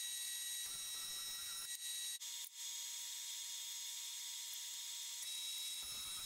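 Grizzly combination jointer-planer running while boards are face-jointed: a steady high whine over a hiss, with a brief dropout a little over two seconds in.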